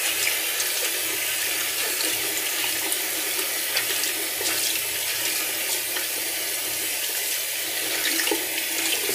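Bathroom tap running steadily into a sink, with small splashes as cold water is scooped onto the face to rinse after a shave.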